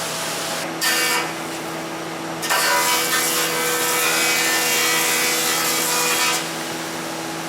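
Wood-Mizer LT70 band sawmill running, its blade briefly biting about a second in, then cutting through a log for about four seconds before it falls back to a steady hum.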